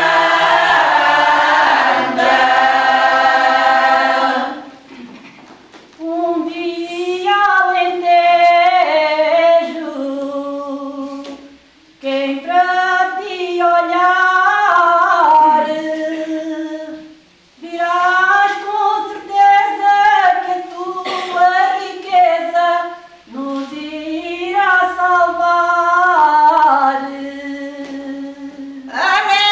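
Women's choir singing cante alentejano unaccompanied. The full choir ends a phrase about four seconds in, then a single woman's voice carries on alone in long sung phrases with short breaths between them.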